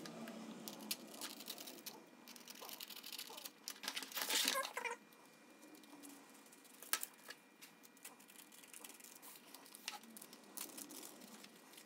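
Thin knife cutting into Kaizen foam, with soft scratching and small clicks as the blade is drawn along. A louder scraping rustle comes about four seconds in.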